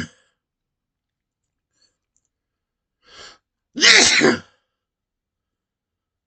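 A man's loud sneeze about four seconds in, just after a short faint intake of breath, with the tail end of a previous sneeze at the very start. The sneezes are brought on by sniffing chhinkni sneezing powder.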